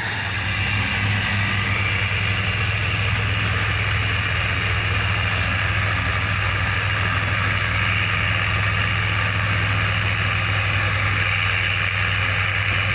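Heavy diesel machinery engine running steadily at an even pitch, without revving.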